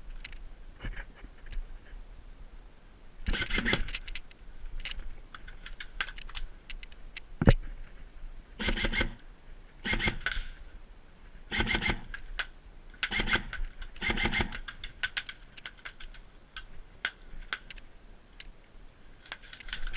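Airsoft electric guns firing six short full-auto bursts, each a rapid run of clicks lasting under a second, with scattered single clicks between them and one sharp crack about seven and a half seconds in.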